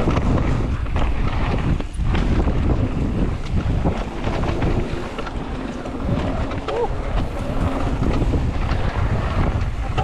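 Wind rushing over the microphone and tyres rolling on the dirt of a mountain bike flow trail during a descent, with small clicks and rattles from the bike over the trail surface.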